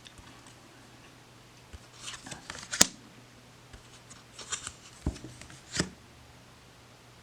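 Tarot cards being handled and turned over: several brief card rustles and snaps, the sharpest about three seconds in.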